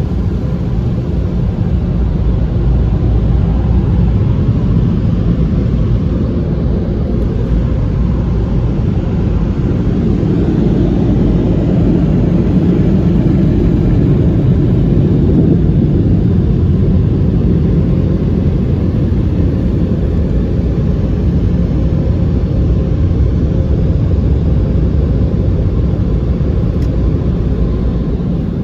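Car wash dryer blowers running, a loud steady rush of air heard from inside the car's cabin, a little louder about halfway through as the car passes under the dryer nozzles.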